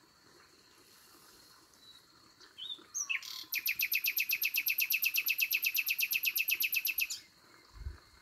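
Nightingale singing: a few short whistled notes about two and a half seconds in, then a fast rattling run of one note repeated about eleven times a second for some three and a half seconds, which stops abruptly. A faint steady high tone runs underneath.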